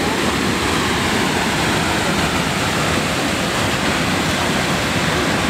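Steady, loud rush of river rapids pouring over a waterfall.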